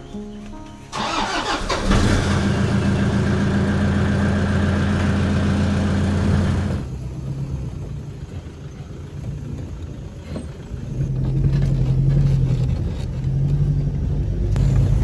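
Pickup truck engine starting about a second in and then running steadily; after a cut, the truck's engine runs on at a lower level, its pitch rising and falling as it drives.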